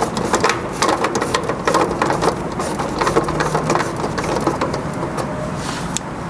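Irregular metallic clicking, rattling and scraping as an HVAC contactor is screwed back onto its mounting plate, busiest in the first half and thinning out after about four seconds.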